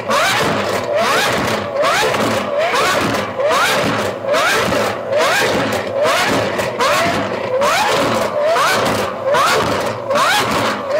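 A sports car engine revved over and over in quick throttle blips, about three every two seconds. Each blip is a short rise in pitch that drops back at once.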